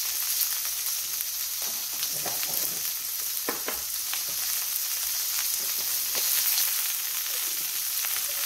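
Rib steak searing in fat and a little olive oil in a hot cast iron skillet under a mesh splatter screen: a steady sizzle with scattered pops and crackles.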